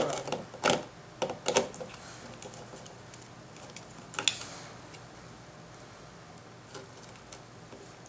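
Light clicks and ticks of a screwdriver and crimped wire terminals being worked under the screw terminal of a motor controller. A few sharper clicks come in the first half, fainter ticks after.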